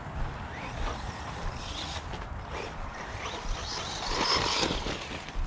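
Cheap electric RC car driving over gravel and dry leaves, its motor whining up and down in short bursts with the throttle, with a louder stretch about four seconds in.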